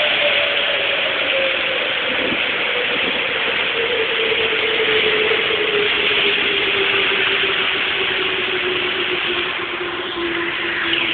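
Steady rushing of storm wind and rain on a cellphone microphone, with a single tone that slowly slides down in pitch throughout.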